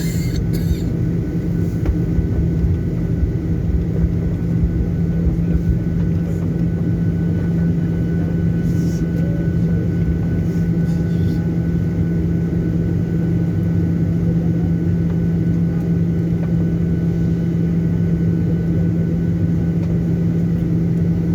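Steady cabin rumble and hum of a Boeing 737-800 airliner on the ground, with a constant low drone and faint steady whines and no build-up of power.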